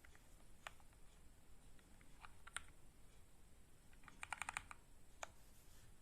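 Keys of a stock Varmilo VA87M mechanical keyboard with Cherry MX Black linear switches being pressed: a few scattered single keystrokes, then a quick run of about eight keystrokes about four seconds in, and one more after it.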